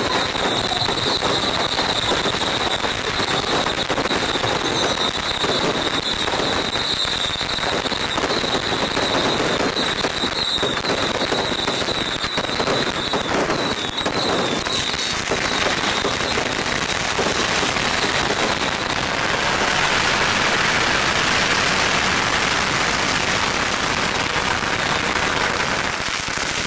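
Long strings of firecrackers going off in a continuous dense crackle, thickening to an almost unbroken rattle near the end. A high steady tone sounds over roughly the first half.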